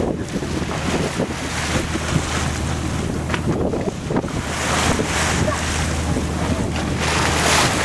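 Wind buffeting the microphone on a boat at sea, with a steady low engine hum beneath and water washing; the wind rushes louder near the end.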